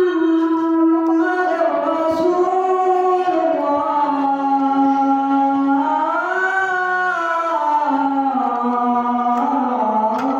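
A man singing the azan, the Islamic call to prayer, solo and unaccompanied: long drawn-out notes with slow ornamented bends in pitch, rising to a higher note about six seconds in and sinking again.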